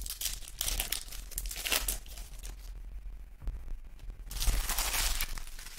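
Foil wrapper of a retail trading-card pack being torn open and crinkled by hand, with a second burst of crinkling about four and a half seconds in.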